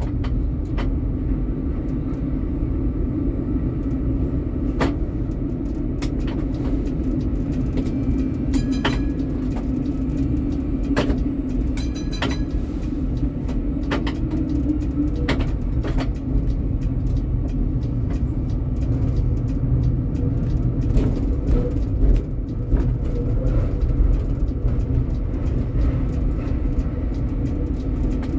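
Tram running along its line: a steady low hum and rumble of the wheels on the rails and the motors, with scattered clicks and knocks.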